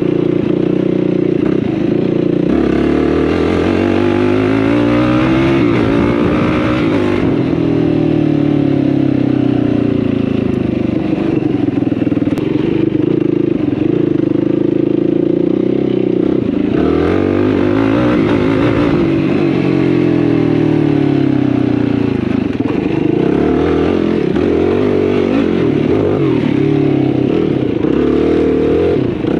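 Yamaha YFZ450R sport quad's single-cylinder four-stroke engine under way, revving up and easing off. Its note climbs about three seconds in and again past the middle, then falls back each time.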